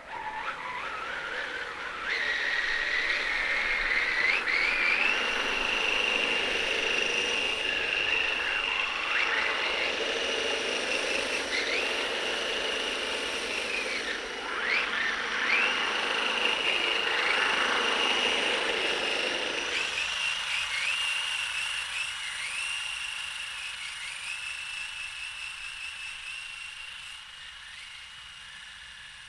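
High whine of the RC screw tank's electric drive motors and planetary gearboxes as it drives through snow. The pitch rises about two seconds in as the motors spin up, dips and recovers several times as the throttle changes, and fades toward the end as the tank moves away. A low rushing noise runs underneath and cuts off about two-thirds of the way through.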